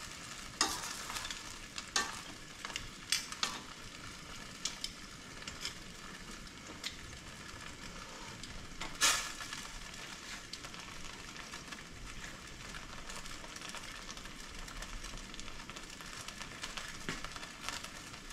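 Lobster pieces stir-frying in a thick sauce, sizzling steadily, with the sharp clacks of a stirring utensil against the pan several times in the first few seconds and once loudly about nine seconds in.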